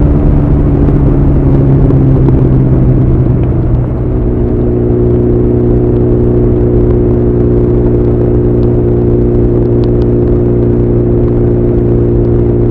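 Honda CB1100's air-cooled inline-four running through an Arrow full exhaust system under way, picked up by a recorder packed in the bike's bag. The engine note eases slowly downward at first, dips briefly about four seconds in, then holds steady at constant revs.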